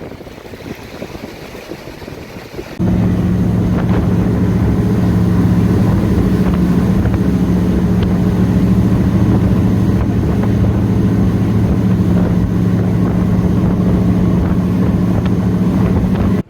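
Jet ski engine running at a steady cruising speed, a loud even drone, after a few seconds of quieter wind and water noise. The drone starts abruptly about three seconds in.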